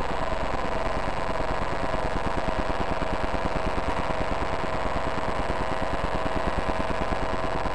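Infrared signals from several TV remote controls, turned into sound by a light-to-sound device and layered into a dense, steady electronic buzz of rapid pulses with a held tone running through it.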